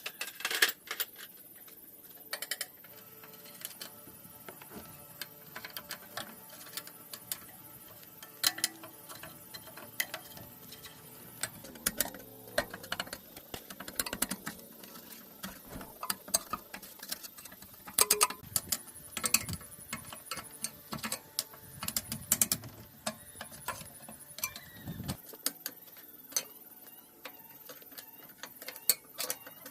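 Irregular small clicks, taps and knocks of hand tools and metal parts being handled during a mechanical repair, with a faint low rumble through the middle stretch.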